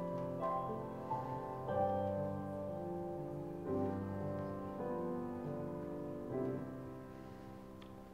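Slow, quiet piano music, sustained chords changing every second or two and fading away near the end.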